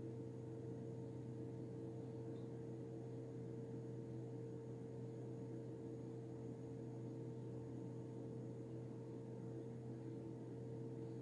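Faint steady hum with a low even hiss: room tone. It holds a few constant low tones and has no knocks or handling noises.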